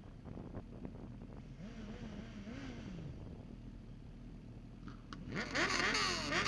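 Motorcycle engines revving in repeated throttle blips, the pitch sweeping up and dropping back again and again. A fainter rev rises and falls early on, then the revving turns loud about five seconds in, with several engines overlapping.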